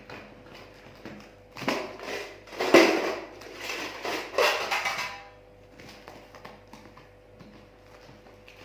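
A package being opened and its contents handled: rustling, scraping and light clattering, loudest from about two to five seconds in.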